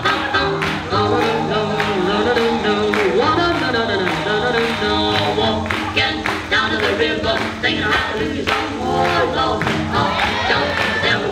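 Swing music with singing over a steady beat, played for lindy hop dancing.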